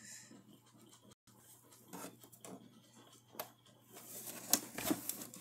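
Faint handling noise: soft rustles and scattered light clicks and taps, a little louder near the end, over a low steady hum.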